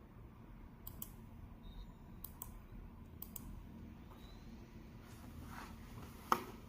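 Clicking of a computer mouse: three quick double clicks in the first few seconds, a few fainter clicks, then one louder click near the end, over a low steady hum.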